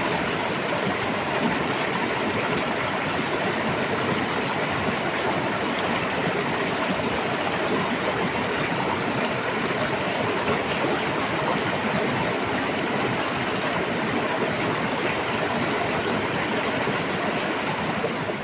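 Stream water rushing hard and steadily, an even dense noise with no breaks.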